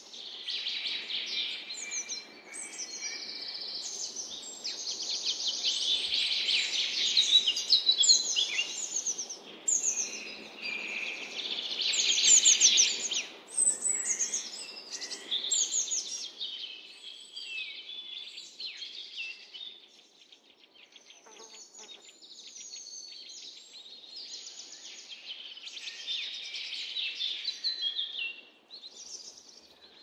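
Several songbirds singing and calling over one another, with rapid trills and chirps. The chorus is densest in the first half and thins out after about twenty seconds.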